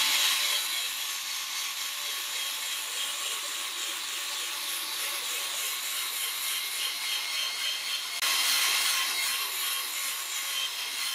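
A polishing pad on a power drill spinning against a glossy plastic netbook lid: a steady, hissing rub with a faint motor whine, getting a little louder a little past eight seconds in. This is the final finishing pass with a fresh pad after compound polishing.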